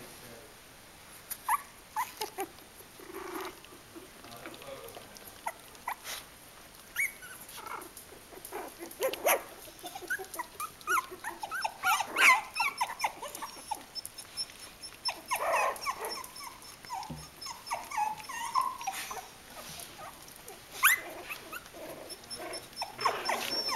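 Three-week-old Kooikerhondje puppies whining and squeaking: many short, high cries that rise and fall in pitch, scattered through the clip and crowding together in the middle.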